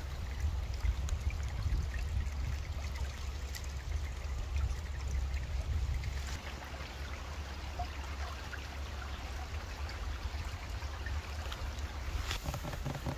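Small forest creek trickling and babbling steadily over rocks, with a steady low rumble underneath.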